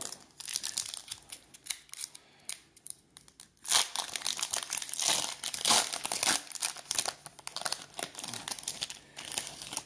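Plastic wrapper of a trading-card pack crinkling and tearing as it is ripped open by hand, in irregular bursts of crackle.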